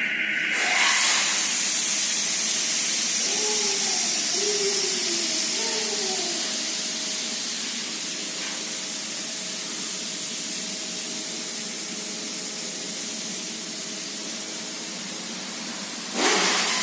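Steady spraying hiss that starts about a second in, with a short wavering tone a few seconds in and a louder surge near the end.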